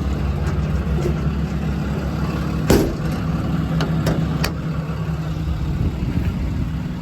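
Ram 5500's 6.7 Cummins diesel idling steadily, with a loud sharp knock nearly three seconds in and a few lighter clicks a second or so later.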